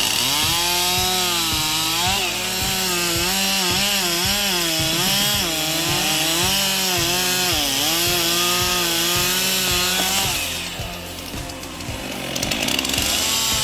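Chainsaw engine running under load, its pitch wavering up and down as it cuts, for about ten seconds before it drops away.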